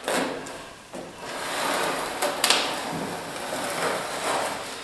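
A plastering tool scraping along fresh gypsum plaster, drawn over the corner in a few separate strokes to pull it straight and smooth.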